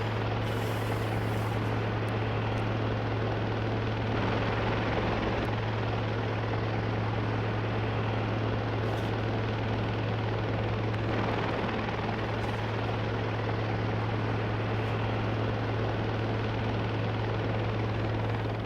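An electric motor or fan running steadily: a strong, constant low hum under an even rushing noise.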